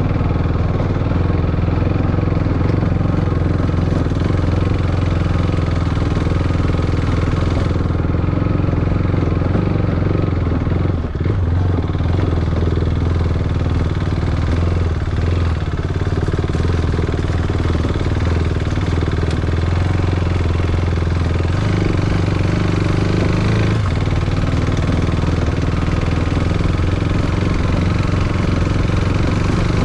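Motorcycle engine running steadily while riding over rough ground, with a brief dip in level about a third of the way through.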